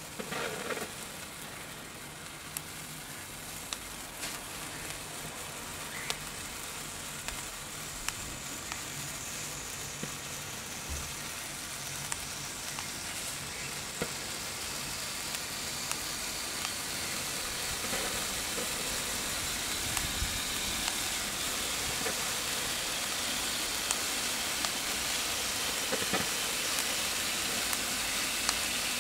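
A firework set off by the electric igniter starts suddenly, then burns with a steady hiss that slowly grows louder, dotted with scattered crackles and pops.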